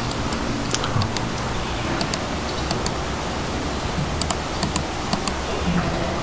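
Computer mouse clicking: scattered sharp clicks at irregular intervals, some in quick pairs like double-clicks, over a steady background hiss and low hum.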